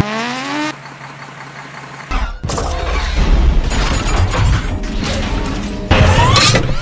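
Dubbed sound effects: a short rising tone, then from about two seconds in a dense run of mechanical whirring and clicking, a robot-transformation sound effect, which gets louder near the end.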